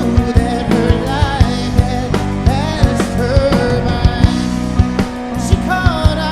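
Live rock band playing: drum kit hits keep a steady beat under sustained chords and a bass line, with a melody line that bends in pitch.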